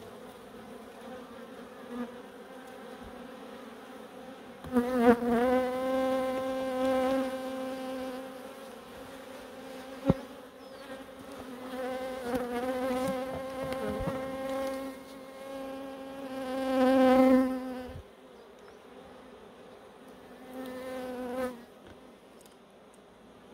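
Honeybees buzzing at an open hive, a steady hum that swells loudly several times as bees fly close, with one sharp tap about ten seconds in.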